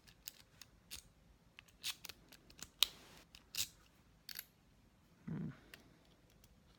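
Steel rake pick scraping and clicking against the pins in the keyway of a clear acrylic practice padlock, held under light tension from a tension wrench: irregular sharp clicks and short scrapes. A brief duller, lower sound comes a little after five seconds in.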